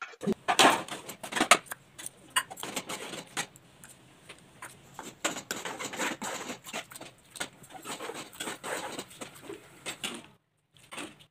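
Cooking sounds at a steel kadhai of simmering aalu chole gravy: irregular clicks and taps over a low steady hum, cutting off suddenly about ten seconds in.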